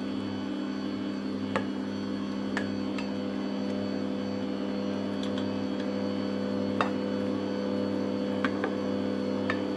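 Electric stand mixer running steadily, its dough hook kneading a stiff flour dough in a stainless steel bowl until it comes together. Its motor hum is broken by scattered sharp clicks.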